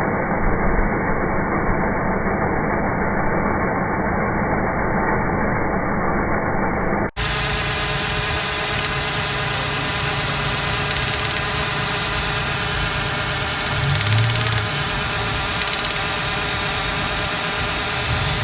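1996 Ford Explorer's 4.0L V6 idling steadily with a cylinder #3 misfire, heard as two joined recordings, the second starting abruptly about seven seconds in and sounding clearer.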